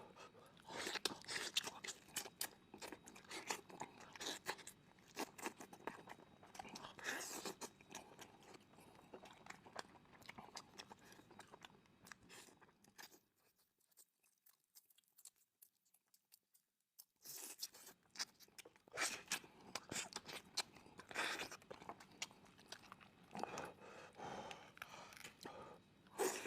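Close-miked chewing and biting of steamed chicken: dense runs of small clicks and crackles from the mouth. There is a pause of near silence for a few seconds a little past the middle.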